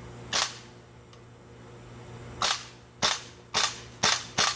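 Well G74CC CO2 gas-blowback airsoft AK-74 firing six shots, each a sharp crack of the gas shot and slamming bolt: one about half a second in, then five in quick succession about half a second apart near the end.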